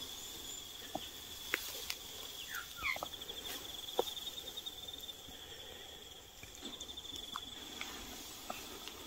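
An insect trilling steadily at a high pitch, the trill pausing briefly past the middle and then picking up again. Over it come a few faint clicks and rustles of footsteps through grass, and a couple of short chirps about two and a half to three seconds in.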